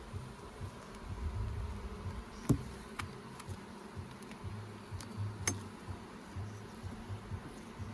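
Honeybees buzzing around an open hive, the low hum swelling and fading as bees fly close. A few sharp clicks, the loudest about two and a half seconds in.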